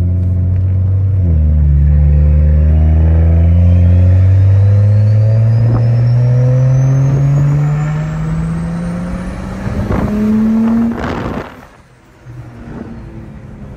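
Big single-turbo BMW N55 straight-six in a full-throttle pull: the engine note climbs steadily through the revs, with a thin turbo whistle rising along with it. About eleven seconds in, a loud rushing burst ends the pull and the engine falls away quietly.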